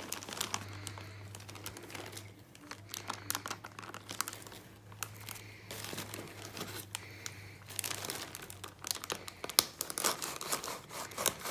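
Plastic shipping bags crinkling and tearing in irregular bursts as they are handled and opened by hand. A steady low hum runs underneath until about eight seconds in.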